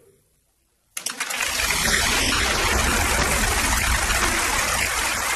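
Studio audience applauding, starting suddenly about a second in after a moment of silence and going on steadily.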